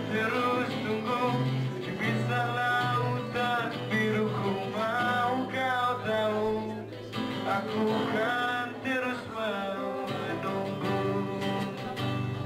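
A man singing with a strummed acoustic guitar in a solo acoustic performance of a Malay pop-rock song. The voice pauses briefly about halfway through while the guitar keeps going.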